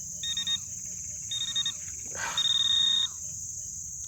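Metal detector sounding on a buried metal target: short bursts of buzzing beeps, then a longer unbroken tone a little past halfway. A steady high drone of insects runs underneath.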